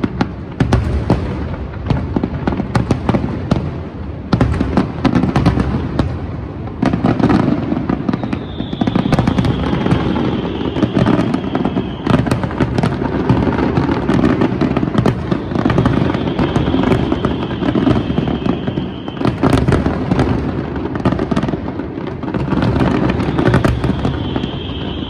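Fireworks display: a continuous barrage of shell bursts, bangs and crackling, with a high whistling tone that comes and goes several times.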